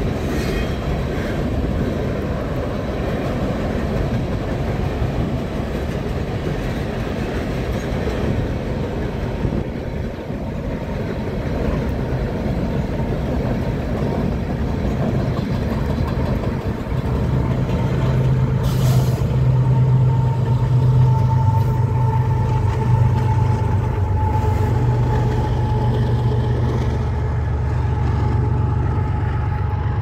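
Freight train of hopper cars rolling across a steel truss bridge, a steady rumble of wheels on rail. About 17 seconds in, BNSF diesel locomotives pass and a loud low engine drone joins the rumble, and soon after a thin, steady squeal runs on top.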